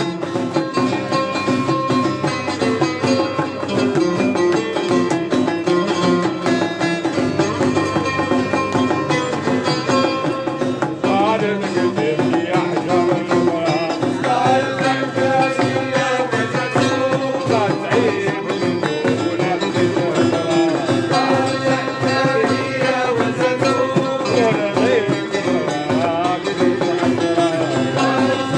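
Traditional folk music played live: a plucked string melody over a steady hand-drum beat, the melody turning more ornamented and wavering from about a third of the way in.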